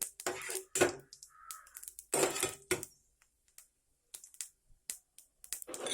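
A metal spoon clinking and scraping against a pan while the tempering seeds and dals fry in oil: a quick run of sharp clinks in the first three seconds, then only a few faint ticks.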